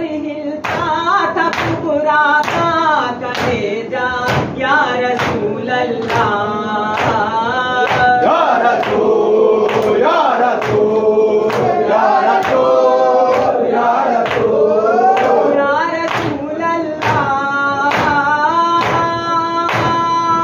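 A group of men chanting a Shia noha (lament) in unison, with rhythmic chest-beating (matam) strikes at about one and a half a second keeping time. Near the end the voices settle on a long held note.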